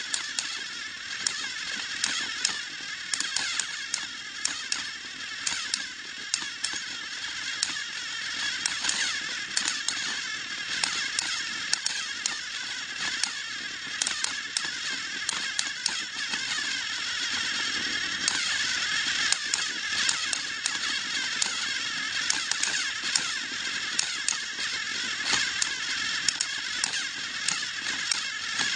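Battery-powered toy train motor whirring steadily, with frequent small clicks throughout.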